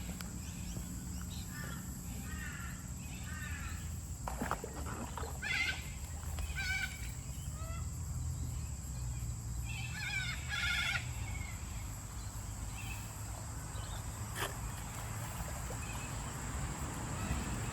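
Birds calling in short repeated phrases several times, over a steady low outdoor rumble and a continuous high-pitched hum; a couple of sharp clicks are heard.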